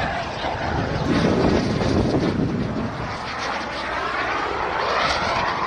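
Airplane engine as an aircraft flies past, its pitch rising through the second half.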